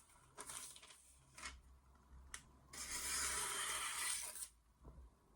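Freshly sharpened stainless knife edge slicing through paper: a few short rustles, then one long cutting hiss of just under two seconds beginning about three seconds in. It is a sharpness test, with the edge biting cleanly into the sheet.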